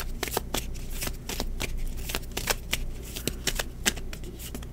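A deck of cards being shuffled by hand: a quick, irregular run of soft snaps and clicks as the cards slap and slide against each other, thinning out near the end.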